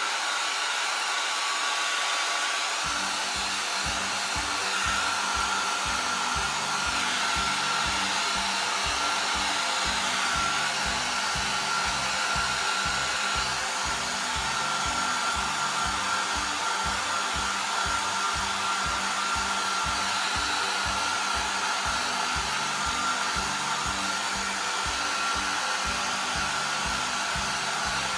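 Handheld hair dryer running steadily: an even rush of blown air with a faint steady whine.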